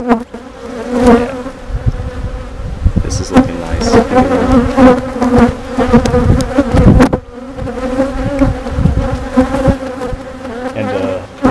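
Honey bees buzzing loudly around an open hive, a steady hum close to the microphone, with scattered short knocks throughout.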